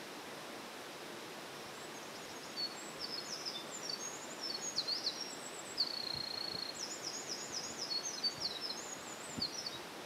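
Eurasian wren singing one long, fast song of high trills and rattling notes, starting about two seconds in and lasting nearly eight seconds, over the steady rush of a mountain stream.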